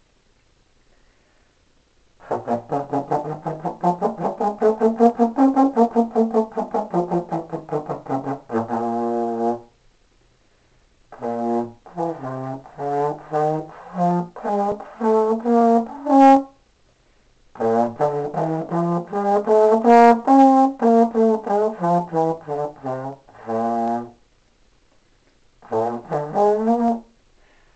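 Solo trombone playing four phrases of quick, separately tongued notes, with short pauses between the phrases.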